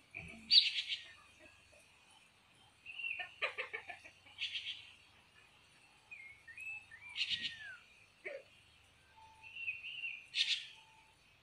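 Caged red-faced liocichla singing: about five phrases a couple of seconds apart, made of slurred whistles that glide up and down and rougher chattering notes, the first about half a second in the loudest.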